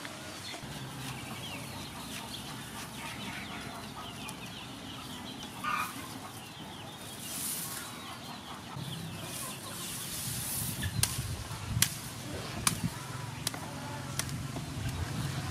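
Poultry clucking from a pen, with grass rustling. Near the end come four sharp snaps as lemongrass stalks are broken off.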